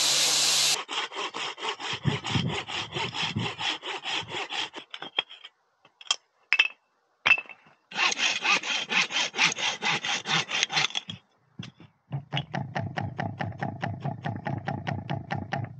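A pressure-washer hiss cuts off just under a second in, then a hand saw cuts wood in quick, even strokes, about five a second, in three bouts with short pauses between them.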